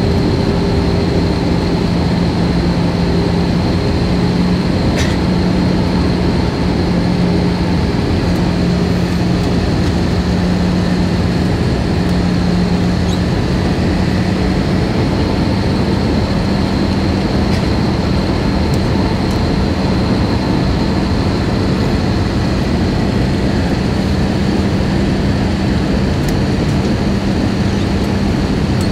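Jet airliner cabin noise in flight: a steady drone of engines and rushing air, with a constant low hum and a faint high whine.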